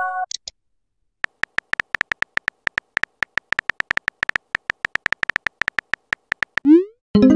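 Typing sound effect of a texting-story app: a quick, slightly irregular run of short electronic beeps, one per letter, after about a second of silence. Near the end a rising swoosh and a short chime-like chord sound.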